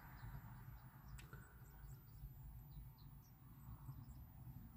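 Near silence: a still car interior with faint, scattered high bird chirps from outside and one small click about a second in.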